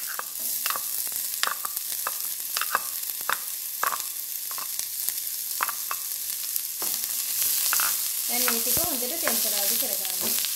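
Chopped red onions sizzling in hot coconut oil in a metal wok, a steady hiss with frequent sharp crackles; near the end a slotted spoon starts stirring them through the oil.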